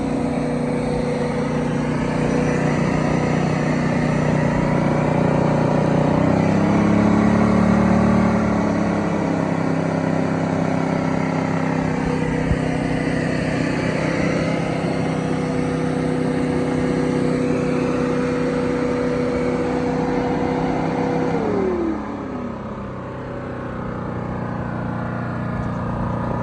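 Generac iX2000 inverter generator running steadily. About six seconds in its pitch and loudness rise as if under load, and near the end a tone slides down quickly and the sound drops in level.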